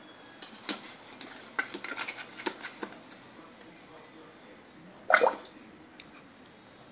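A plastic drinking straw clicking and tapping against a ceramic water bowl, a run of light knocks over a couple of seconds, then one short, louder burst about five seconds in.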